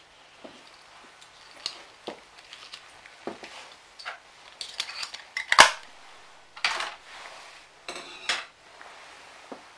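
Handling noises: a scatter of sharp clicks, clinks and short rustles as equipment is handled, the sharpest click a little past halfway.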